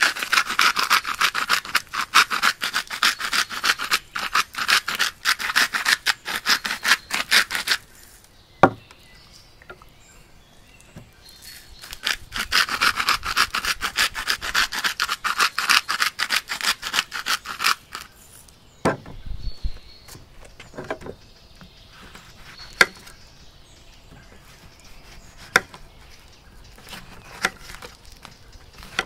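A whole duck being salted on a wooden cutting board: two long spells of fast, gritty rubbing strokes, followed by a few scattered knocks and taps on the board.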